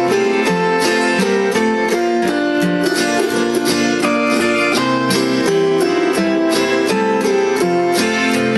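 Autoharp and acoustic guitar playing an instrumental break in an old-time country tune, strummed in a steady, even rhythm.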